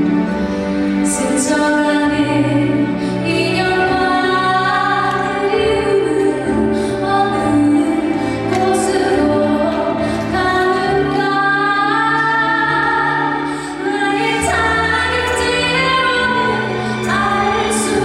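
A woman singing a song live with instrumental accompaniment, holding long, gliding notes over a steady bass line.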